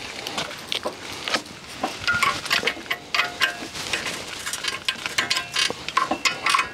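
Hydraulic hose quick couplers (Pioneer-type) being pushed onto the loader's ports: a string of sharp metal clicks and clinks of the steel fittings, some with a brief ring.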